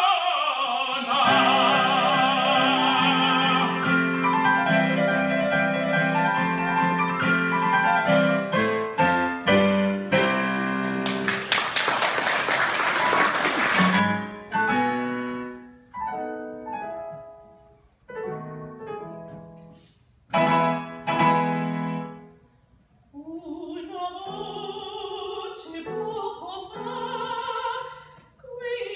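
An operatic baritone holds a final sung note over stage-keyboard accompaniment, and the keyboard plays on to close the number. Brief applause follows and cuts off, then spaced keyboard chords lead in, and a soprano begins singing an operatic line with the keyboard near the end.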